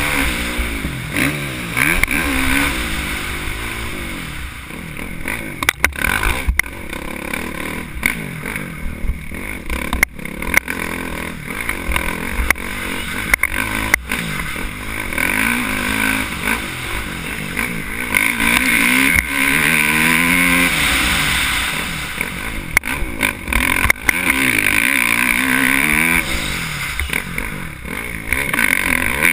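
Motocross dirt bike engine revving up and down over and over as it is ridden hard around the track, with scattered knocks and clatter from bumps and landings.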